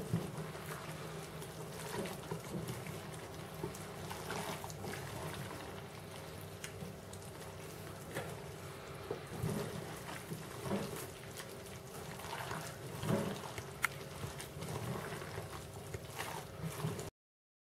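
Hands squelching and kneading pieces of raw pork and sliced onion in their wet marinade in an enamel pot: irregular squishing and sloshing, cutting off suddenly near the end.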